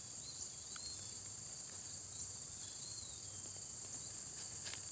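Steady, high-pitched chorus of crickets or similar insects, with a few faint chirps over it.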